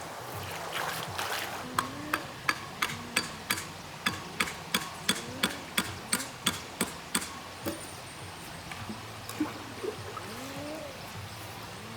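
Water splashing and trickling, with a run of sharp, regular splashes or slaps, about three a second, from about two seconds in until about seven seconds in, and some gurgling.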